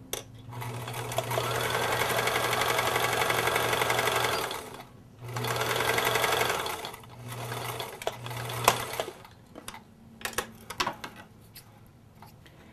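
Household electric sewing machine stitching a seam: one run of about four seconds, a pause, a shorter run, then two brief bursts ending in a sharp click. After that come light clicks and handling sounds as the thread is snipped with scissors.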